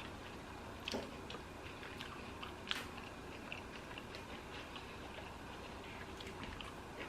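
Close-miked chewing of a lettuce-wrapped sandwich: soft wet mouth clicks and smacks, with two sharper clicks about one second and nearly three seconds in.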